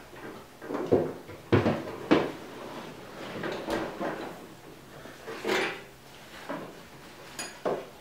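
Knocks and thumps of a person climbing into a mini sprint car's race seat and shifting about in the cockpit, the hardest bumps about one and a half and two seconds in, with a few lighter knocks later as he settles and handles the seat belts.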